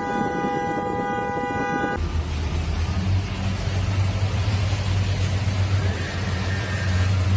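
A horn sounds one long held blast, a chord of several steady notes, that stops abruptly about two seconds in. After it, a motor runs with a steady low hum.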